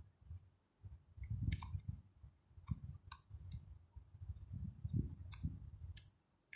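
A small screw being driven back into a dash cam's plastic casing with a screwdriver: scattered light clicks over the rub of the casing being handled.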